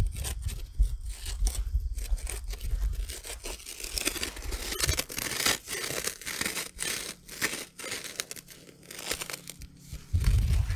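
Concrete mix being stirred by hand with water: irregular gritty scraping and crunching, with a low rumble during the first few seconds.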